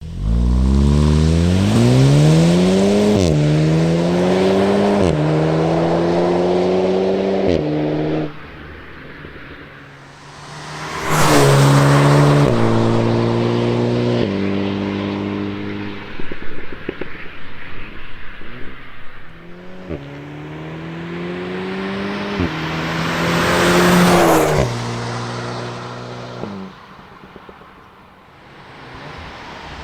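Seat Leon Cupra 300's stock exhaust as the turbocharged 2.0-litre four-cylinder revs hard through quick upshifts: the pitch climbs and drops back at each shift, and the car passes close twice. Between the pulls, irregular crackles and pops sound on the overrun.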